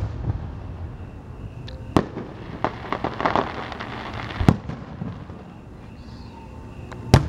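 Aerial firework shells bursting: three sharp booms, roughly two and a half seconds apart, with a short spell of crackling between the first and second.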